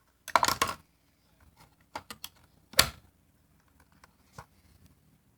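Clicks and rattles of the metal parts of a 1938 General Electric vacuum cleaner being handled: a short clatter near the start, then a few separate sharp clicks.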